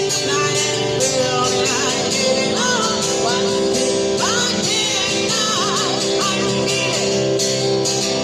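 Busker singing with guitar accompaniment, the voice holding long, wavering notes.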